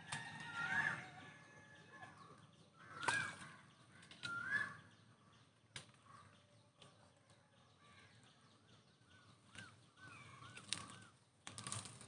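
Birds calling faintly: short rising chirps spaced a second or more apart, then a quick run of shorter calls near the end, with a few sharp clicks among them.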